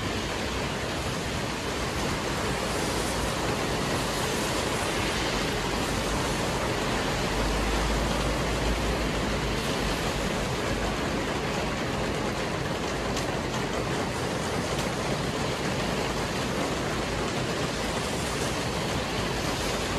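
Heavy rain pouring down steadily onto wet paving and standing water, a dense even hiss. A brief low rumble comes in about eight seconds in.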